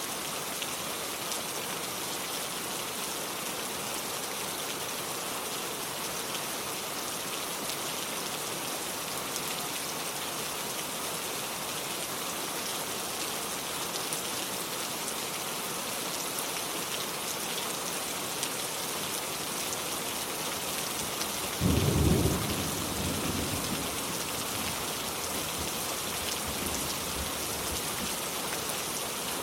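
Steady rain falling, with a single loud thunderclap about three quarters of the way through that rumbles away over a few seconds.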